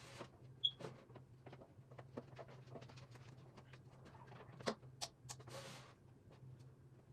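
Scattered light clicks, taps and rustles of hands handling PC cables and parts, over a faint steady low hum. A brief high squeak comes early, and a short rustle comes about five seconds in.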